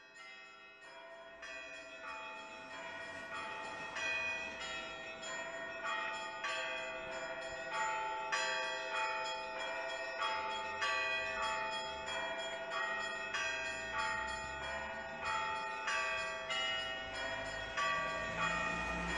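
Church bells ringing: a steady, rhythmic peal of overlapping strikes over a low held tone, fading in from quiet and growing louder.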